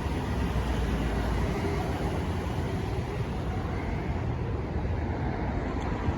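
Steady low rumble with a hiss of outdoor background noise, with one light click near the end.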